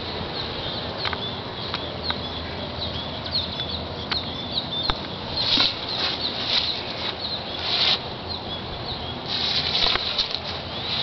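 Outdoor ambience among the beehives: a steady noisy hiss with scattered short high chirps, a few light clicks, and several brief rustling bursts, the loudest near the end.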